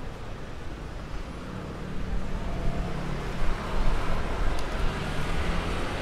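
City street traffic noise: a steady low rumble of passing vehicles, with an engine hum growing louder about two seconds in.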